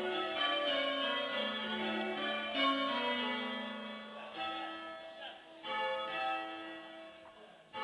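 Church tower bells being rung in changes, heard from the stairwell below the bells: a run of overlapping strikes with long ringing decays. The strikes thin out in the second half, with a louder strike about two-thirds of the way through.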